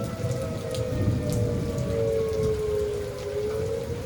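Heavy rain pouring down while an outdoor tornado warning siren wails, its held tone slowly sinking in pitch.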